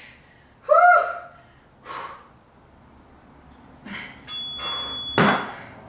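Hard, rhythmic exhales from effort during dead-bug core reps, with a short squeak about a second in. Near the end a workout interval timer chimes once as the interval ends, followed by a last heavy breath out.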